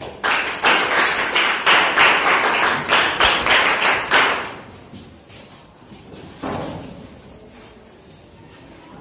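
A group of students applauding, many hands clapping irregularly together for about four seconds before it dies away.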